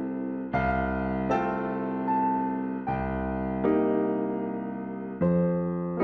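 Background music: slow, gentle piano chords, a new chord struck about every second and left to ring out.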